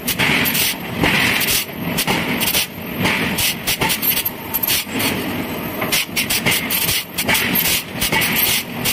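Heavy forging work: irregular sharp metal clanks and knocks, several a second at times, over a steady machine hiss.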